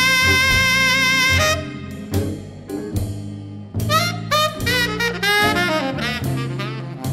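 Blues music in an instrumental break: a saxophone holds a long note until about a second and a half in, then plays quick runs of notes over a bass line.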